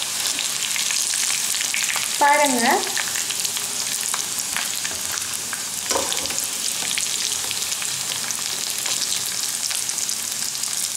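Marinated chicken pieces deep-frying in hot oil: a steady sizzle full of small crackles and pops, with a perforated steel skimmer stirring through the pan as the fully fried pieces are lifted out.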